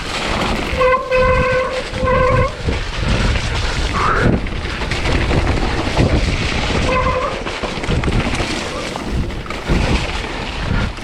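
Wind buffeting and rumbling ride noise on a mountain bike's action camera during a wet descent, with a few short pitched squeals about a second in, two seconds in and again near seven seconds in.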